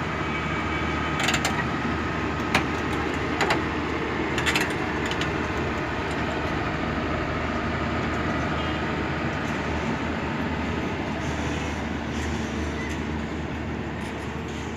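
L&T-Komatsu crawler excavator's diesel engine running steadily under load as the machine lowers itself off a flatbed lorry, with a few sharp knocks in the first five seconds.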